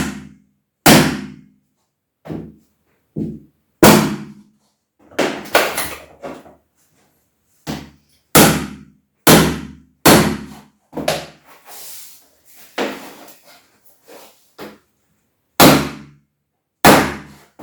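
Hammer blows knocking laminate floor planks into place: about twenty sharp knocks at irregular intervals, in short runs with pauses between.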